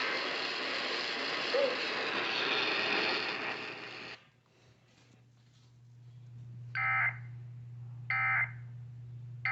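Steady radio hiss that cuts off about four seconds in, leaving a low hum. Then a weather radio's alert beeps go off: short beeps about 1.3 seconds apart, a third starting at the very end.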